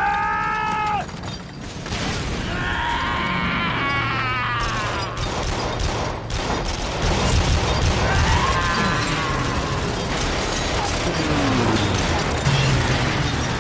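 Dense battle sound effects of rapid anti-aircraft gunfire and blasts aboard a warship, a steady crackling barrage. High wailing sounds rise and fall over it, twice in the first few seconds and again after about eight seconds.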